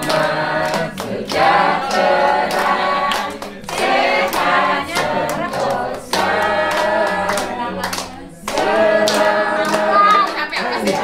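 A group of people singing a birthday song together in unison, in phrases with short breaks, while clapping along.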